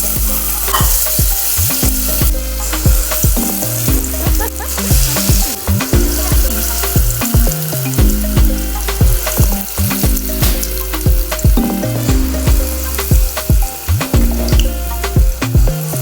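Akara bean-batter fritters deep-frying in hot vegetable oil, a steady sizzle, over background music with a regular beat and bass line.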